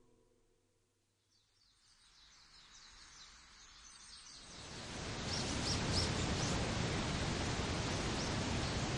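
Music dies away, then after a moment of near silence birds chirp high and a steady rush of falling water swells in from about four seconds in: the ambience of a waterfall.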